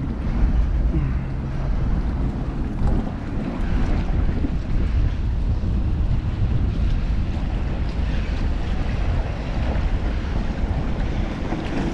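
Wind buffeting the microphone, with choppy tidal water slapping against the kayak hull. It is a steady, low rumbling rush with no clear rhythm.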